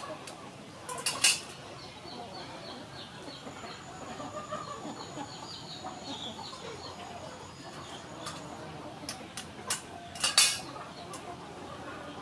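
Hens clucking in the background, with two sharp clicks, about a second in and again near the end, from boiled eggs knocked against a metal plate as their shells are peeled.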